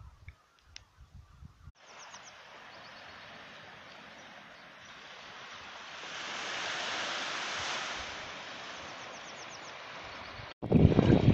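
Sea surf washing on the shore: a steady hiss that swells to a peak about halfway through and eases off again, with a few small bird chirps. Wind buffets the microphone briefly at the start and again near the end.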